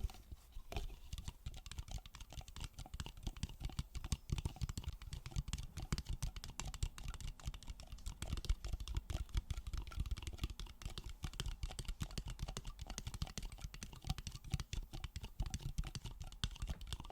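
Rapid, irregular tapping and clicking on a dumbbell-shaped water bottle, many light taps a second, as ASMR tapping.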